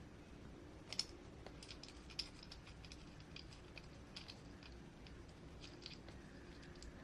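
Faint, irregular clicks and ticks of small hard parts being handled, as an RC crawler's wheel and wheel nut are fitted by hand; the sharpest click comes about a second in, another a little after two seconds.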